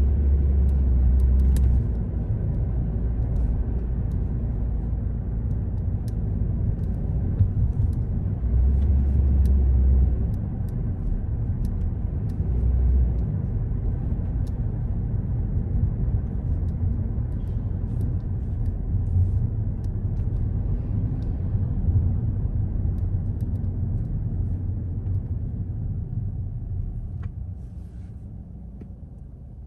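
Car driving, heard as a steady low road and engine rumble with a few heavier surges of low rumble in the first ten seconds. It grows quieter over the last few seconds.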